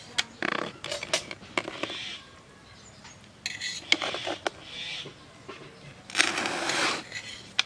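Metal ladle clinking and scraping against the side of a large metal cooking pot as cooked dum biryani rice is scooped and turned, with a run of sharp clicks and a few longer scrapes through the rice.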